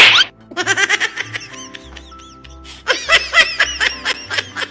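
A comedy sound effect of high-pitched snickering laughter in quick, regular pulses, in two runs, over background music. It opens with a brief loud burst.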